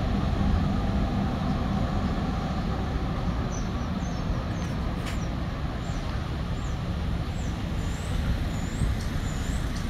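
Steady low rumble of street traffic and a heavy vehicle's engine, with faint high chirps from about three and a half seconds in and a single short click near the middle.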